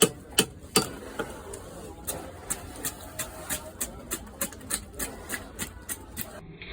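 Rhythmic strokes of a blade cutting into a catla fish, about two and a half a second. The first three strokes are the loudest.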